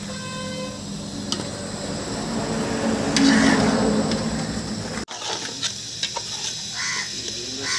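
Chicken masala sizzling in hot oil in a pan while it is stirred. About five seconds in the sound breaks off abruptly, then resumes as quieter sizzling with short scraping strokes of the spoon against the pan.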